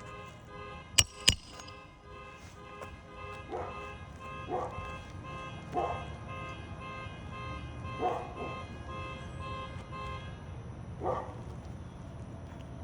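A dog barking several times, one bark every second or two, over a steady held musical tone that stops near the end. Two sharp knocks about a second in are the loudest sounds.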